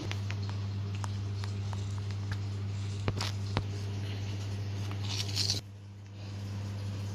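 Steel scissors snipping through thin cloth: a few sharp clicks of the blades with rustling of the fabric, and a longer, louder rustle about five seconds in. A steady low hum runs underneath and breaks off briefly near the end.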